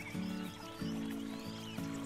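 Background instrumental music with held low notes that change every half second or so, with short high chirps over it.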